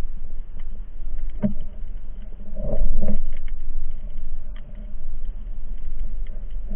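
Muffled underwater sound picked up through an action camera's waterproof housing: a steady low rumble with scattered clicks, and knocks about a second and a half and three seconds in.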